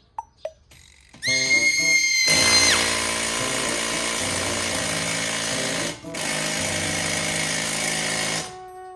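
Power tool running: a high whine starts about a second in and falls away, then the tool runs steadily, dips briefly about six seconds in, and stops near the end.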